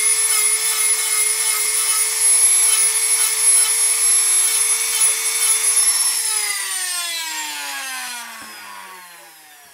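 Handheld electric rotary tool running at high speed with a steady whine while its bit works the carved wood. About six seconds in it is switched off, and the whine falls in pitch and fades as the tool spins down.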